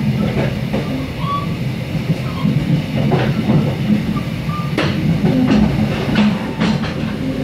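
Passenger train running along the track, heard from inside the carriage: a steady low rumble of wheels on rail with sharp clicks, more of them in the second half.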